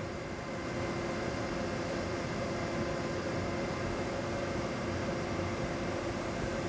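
Steady fan hum from running equipment, with a few constant tones and no change throughout.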